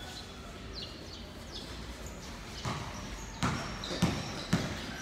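Basketball bouncing on a hard court floor: four sharp bounces about half a second apart in the second half.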